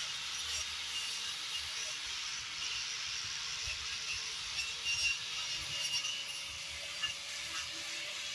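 Angle grinder with a wire brush wheel scouring rotten wood, stripping away the rotted surface: a steady motor whine under a continuous high scrubbing noise, with scattered small ticks.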